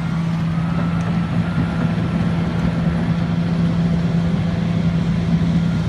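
Excavator's diesel engine running steadily at idle: a loud, even drone that does not change.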